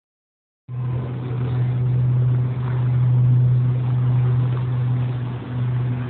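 A steady low hum over a wash of noise, starting under a second in.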